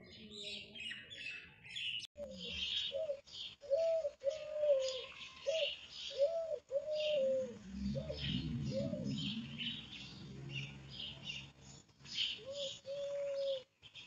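Small birds chirping over and over while a dove coos in short, repeated arching notes; a low rumble comes in about halfway through.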